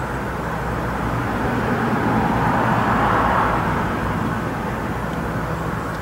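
Background noise of a passing vehicle, rising to a peak about halfway through and fading away, over a steady low hum.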